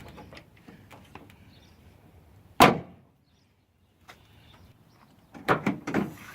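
2017 Ram 1500 tailgate slammed shut once, a loud metallic latching bang about two and a half seconds in, then several clunks near the end as the tailgate is worked again, testing the newly fitted tailgate assist.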